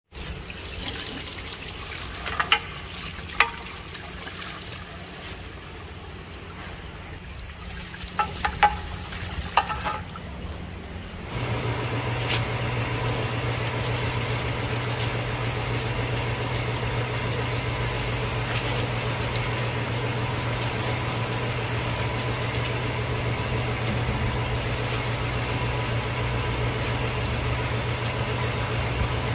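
A few metal clinks and knocks. About eleven seconds in, a pump motor starts and runs with a steady hum, while water gushes from a hose and splashes through a stripped tractor transmission case into a drum below.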